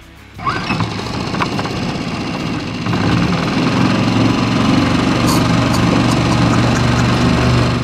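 Small 2.5 horsepower outboard motor running on a little boat, coming on about half a second in and getting louder from about three seconds in.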